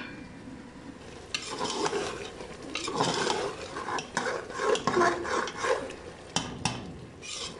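A spoon stirring thick vegetable-and-mutton curry in an aluminium pot, scraping and clinking against the pot in repeated strokes, with a light sizzle as the liquid cooks off on high heat. The stirring strokes begin about a second and a half in.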